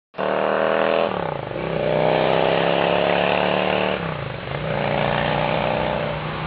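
Yamaha XVS 535 motorcycle's V-twin engine running loudly and steadily. Its pitch drops quickly twice, about a second in and again near four seconds, then holds steady at the lower pitch.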